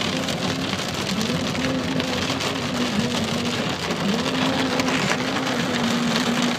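Rain falling steadily on a car's roof and windscreen, heard from inside the moving car, with a low tone underneath that wavers up and down in pitch.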